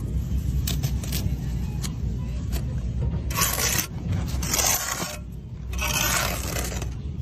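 Scraping: a few sharp clicks, then three scraping strokes about a second apart, over a steady low rumble.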